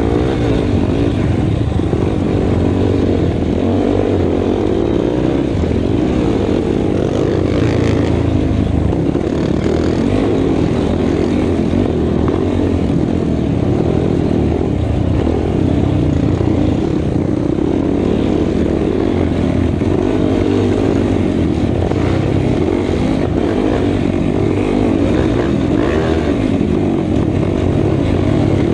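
Racing ATV engine running hard and steadily at speed, recorded on board, with a rough, noisy rumble and no let-up.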